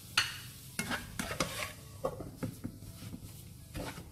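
Spatula scraping and pressing thick mashed sweet potato halwa around a nonstick frying pan: a run of irregular scrapes and knocks, thickest in the first second and a half. The halwa has stiffened to the point where it comes away from the sides of the pan, the sign that it is done.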